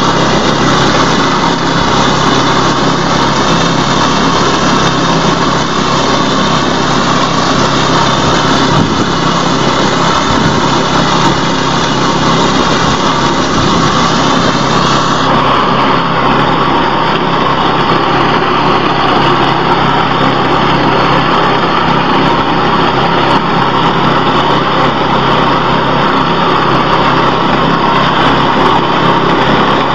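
Small engine of a wheat and rice reaper running steadily at a constant speed, with a dense mechanical drone and no pauses.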